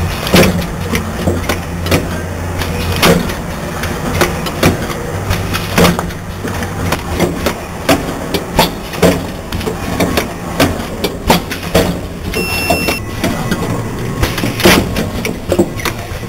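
Automatic yogurt cup filling and sealing machine running, with irregular mechanical clacks and knocks from its indexing table, filler and sealing press, a few a second, over a low hum that comes and goes. A short electronic beep sounds about three-quarters of the way through.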